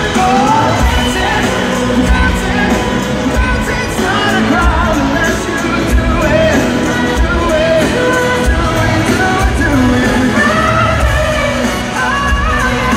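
A live pop-rock band playing loud through an arena sound system, a lead vocal over drums and a brass section, heard from among the crowd in a large, echoing hall.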